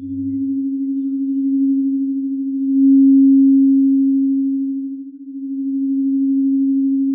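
A singing bowl sounding one sustained, slightly wavering low tone. It swells louder about three seconds in, dips briefly near five seconds, then swells again. There is a soft low thud at the very start.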